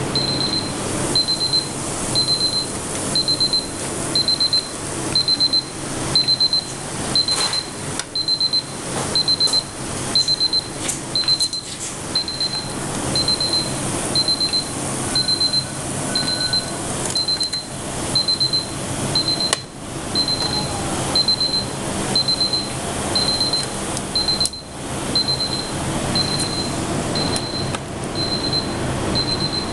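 Digital kitchen timer alarm beeping: a short high beep repeating evenly about twice a second without stopping, over a steady background hiss.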